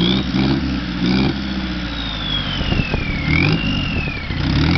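Diesel engine of a biodiesel-powered streamliner motorcycle revving hard in repeated rising blips during a smoky rear-tyre burnout, with a high whine that glides slowly down and then back up in the middle.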